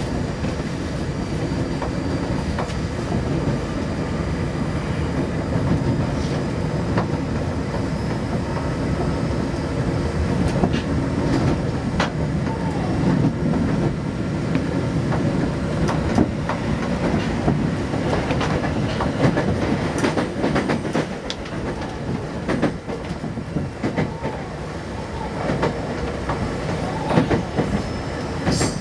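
Tokyo Metro 05 series commuter train running between stations, heard from inside the car: a steady rumble of wheels on rail with scattered clicks as the wheels pass over rail joints.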